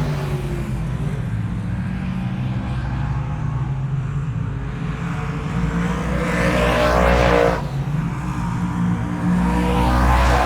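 Car engine running steadily, swelling louder about six seconds in and cutting off sharply a second and a half later, then building again near the end.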